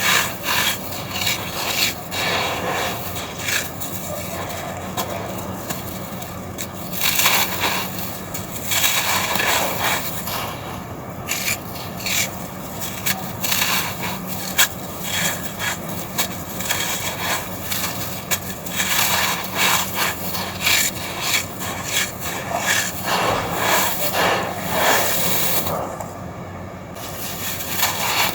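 Dry red sand cylinders crunching and crumbling as they are crushed, a continuous run of gritty crackles and scrapes.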